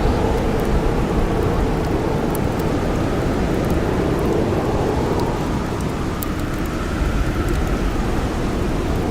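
Snowstorm wind, a dense steady rushing that slowly swells and eases, with a campfire crackling: scattered small sharp pops over it.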